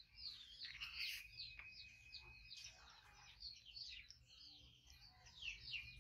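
Faint bird chirping: many short, high, falling chirps overlapping one another, with a thin held whistle now and then.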